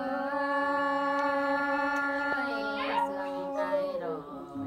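Unaccompanied folk singing: one voice holds a single long, steady note, then lets it fall away near the end. Another voice briefly cuts in with a rising call about three seconds in.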